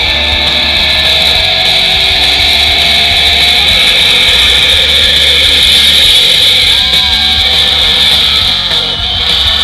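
Loud, amplified live rock music from a new wave band, with electric guitars, heard from the concert crowd.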